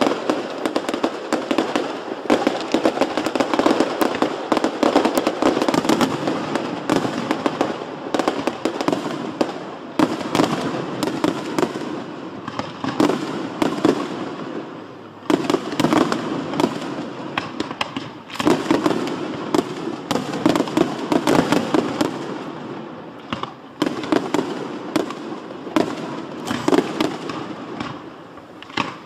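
Aerial fireworks display: a rapid, unbroken barrage of shells bursting and crackling, with fresh volleys starting sharply about 10, 15, 18 and 24 seconds in.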